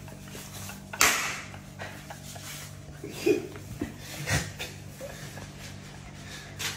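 Handling noise and household knocks: a loud scraping rustle about a second in and a low thud a little after four seconds, with small clicks between, over a steady low hum.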